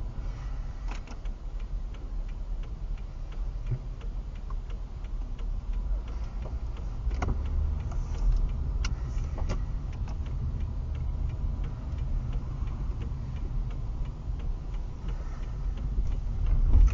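Steady low road and engine rumble heard inside a moving car's cabin, with a turn-signal relay clicking about three times a second for most of it and a few sharper knocks around the middle.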